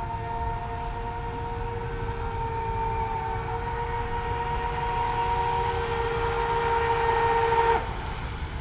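Twin brushless motors of an RC racing catamaran whining at a steady high pitch under a low rumble. The whine grows louder and cuts off suddenly near the end.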